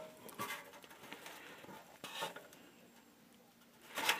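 Faint rustling and light taps of handling at close range, with a louder rustle about four seconds in.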